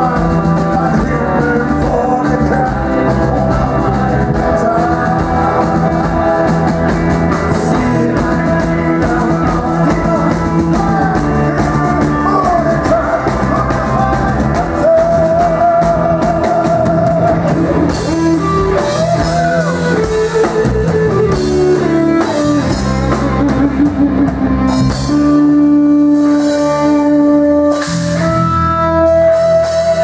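Rock band playing live: electric guitar, bass guitar and drum kit, with a lead line of wavering, bent notes. About 25 seconds in, the band settles into long held notes.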